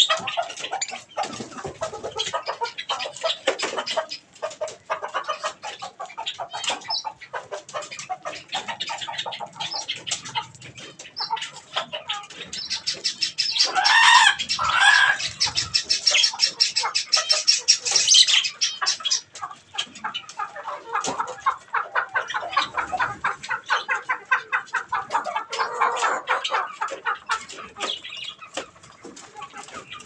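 A flock of budgerigars chattering and chirping rapidly and without a break, mixed with other aviary birds. Midway comes a louder stretch: two arching calls and a close flurry of wingbeats.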